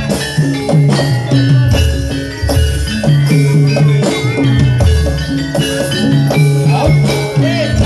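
Live jaranan accompaniment music: a Javanese ensemble of drums and tuned metal mallet percussion playing a steady, busy rhythm.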